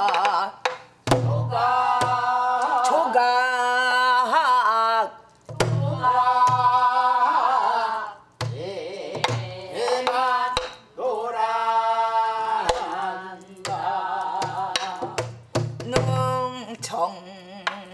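A woman singing a Gyeongsang-do folk song in long held, melismatic phrases with wide vibrato, with a buk barrel drum struck now and then under the voice.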